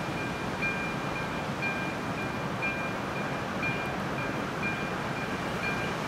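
Electronic warning bell of an AŽD 97 level-crossing signal ringing a regular two-tone ding about twice a second while the crossing is closed, over a steady rushing noise.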